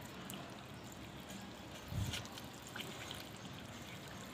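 Faint trickling and dripping water, with small clicks and one dull thump about two seconds in.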